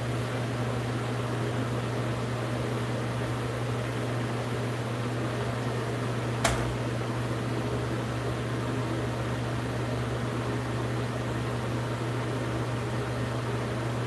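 Steady hum of a fan over a constant hiss, with a single sharp click about six and a half seconds in.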